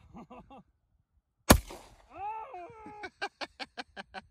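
A single 9 mm pistol shot about a second and a half in, a sharp crack with a short ringing tail.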